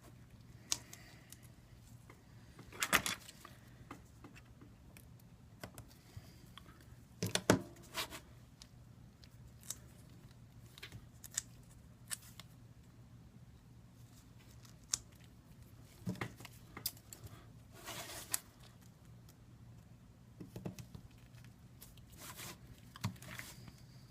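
Adhesive tape being pulled and torn in short strips, with small clicks of handling between rips, over a faint steady low hum.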